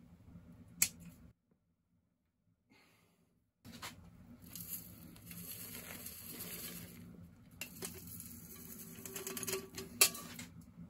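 Loose gritty potting mix poured into a plastic pot: a rattling hiss of grains that runs for a few seconds, stops briefly, then runs again. A sharp click comes about a second in and a louder one near the end.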